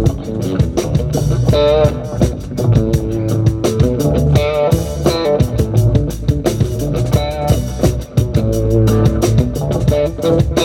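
Live band playing an instrumental jam: a lead guitar line with wavering, bent notes over electric bass and a drum kit.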